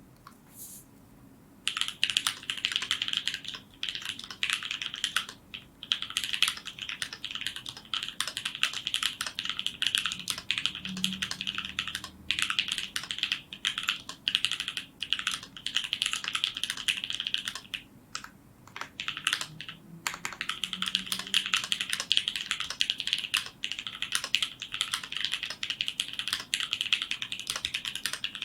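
Typing on an Idyllic Alice N2 mechanical keyboard fitted with H1 switches (lubed with 206g2, Deskeys films, 63.5 g springs) and GMK Umbra keycaps. It is a fast, continuous run of keystrokes that starts about two seconds in, with a few brief pauses.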